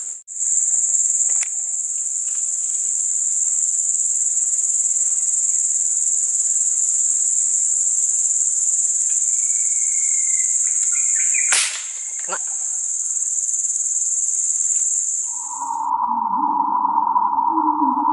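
Steady high-pitched insect drone that cuts off suddenly near the end and gives way to a lower steady buzz, with one sharp click about two-thirds of the way through.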